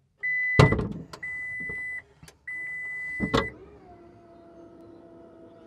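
Ford F-150 Lightning's power frunk opening: three long steady warning beeps, with a loud clunk during the first beep and another at the end of the third. Then the electric motor lifts the frunk lid with a quiet, steady hum.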